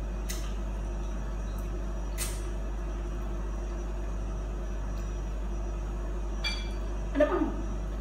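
Mouth noises of someone eating with their hands: a few short smacks over a steady low hum, with a brief louder smacking sound near the end.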